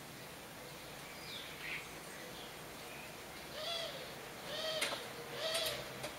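Common starlings calling: a few thin falling whistles, then three harsh rising-and-falling calls about a second apart in the second half.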